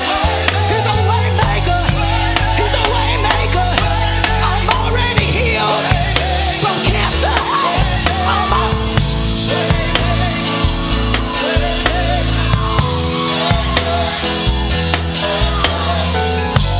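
Live church worship band playing, with drum kit and bass guitar under steady sustained chords.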